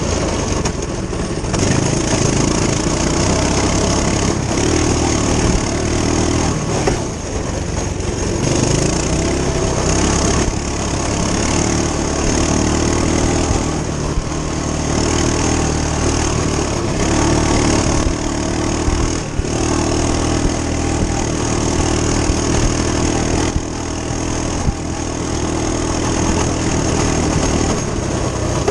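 Coleman CT200U-EX minibike's single-cylinder four-stroke engine running under load while ridden over dirt, its note rising and falling with the throttle and easing off briefly a few times.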